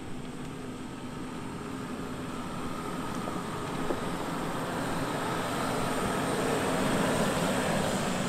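Toyota Land Cruiser's 4.2-litre turbo-diesel engine running at low revs as the 4x4 crawls over a rutted forest track, growing steadily louder as it comes close, with a single knock about four seconds in.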